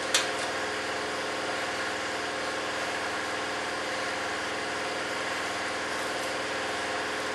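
A motor or engine running steadily, a constant hum with an even stack of tones. There is one sharp click just after the start.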